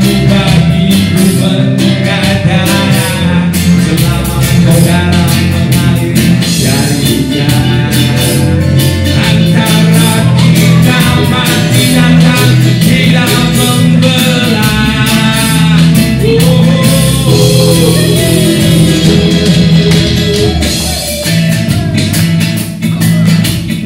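Live band playing a reggae-flavoured song, with bass guitar, acoustic guitar and flutes under a steady bass pulse, and a man singing the melody.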